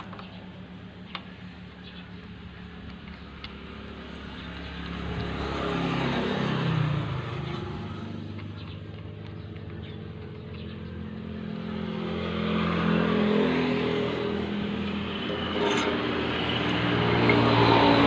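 Motor vehicle engines passing by, swelling twice and fading between, with a couple of faint clicks early on.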